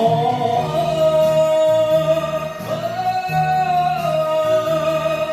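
Kayō-gin singing, Japanese shigin-style poetry chanting set to popular-song backing. One long held note with vibrato steps up in pitch near the middle and settles back down, over backing music with a pulsing bass line.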